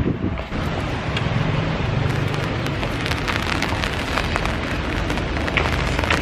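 Heavy rain falling, with individual drops ticking close to the microphone and a low rumble underneath for a couple of seconds near the start.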